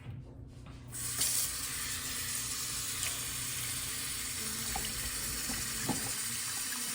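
Water running steadily, starting about a second in, as conditioner is rinsed out of a wig.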